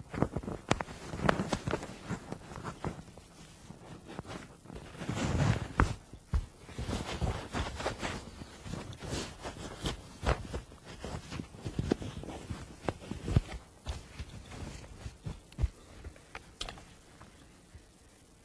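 Irregular handling noise: scattered small clicks, knocks and rustling, busiest in the first half and dying away near the end.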